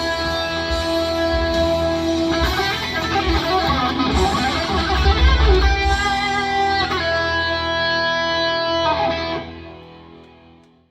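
Electric guitar, played through a Fractal FM9 amp modeler, improvising in E minor: long sustained notes, a quick run of notes in the middle, then a held chord that fades out near the end.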